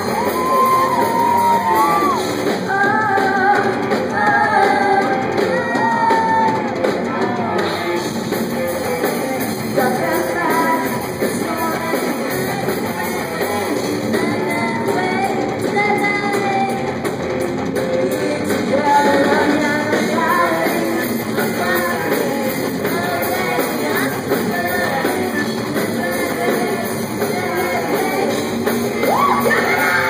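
Live rock band playing, with singers' voices over guitar and drums, recorded on a cellphone in a hall.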